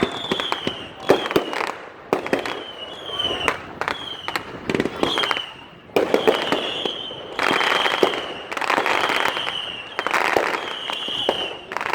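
Fireworks and firecrackers going off in quick succession: many sharp bangs and pops mixed with repeated short, slightly falling whistles.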